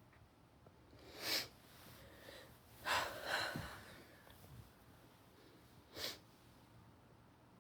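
A woman sniffling with a runny nose, three times: a short sniff about a second in, a longer, louder one around three seconds, and another short sniff near six seconds.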